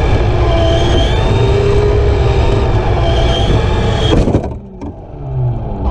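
Tamiya TT-01E RC car's 17.5-turn Orion sensored brushless motor and shaft-driven gearbox whining at speed, with tyre rumble on carpet, heard from on board the car. The whine drops away suddenly about four seconds in, then starts rising again near the end.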